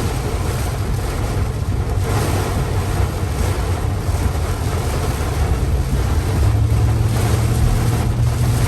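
Vehicle cabin noise while driving in heavy rain: a steady low engine hum under the hiss of rain and tyres on the wet road. The hum grows stronger about six and a half seconds in.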